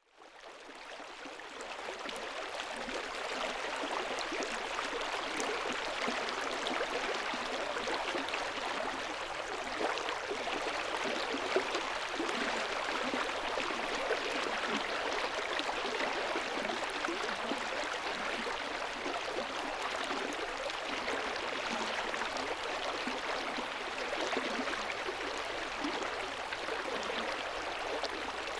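Rainforest river flowing over rocks, a steady rushing and burbling of water that fades in over the first couple of seconds.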